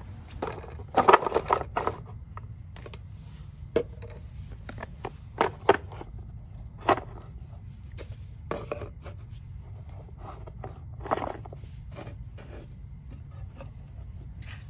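Plastic being handled: a stack of plastic leveling blocks set down and shifted on a concrete floor and a plastic cup placed on top, giving scattered knocks and scrapes, busiest about a second in, over a steady low hum.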